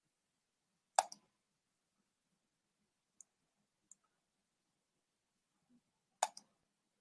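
Computer mouse clicking: two sharp double clicks, about a second in and again near the end, with two faint high ticks between.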